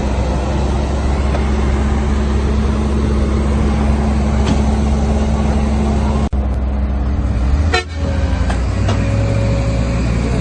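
Heavy diesel engines of earthmoving machinery running loud and steady under load, with a brief sharp dropout a little past halfway.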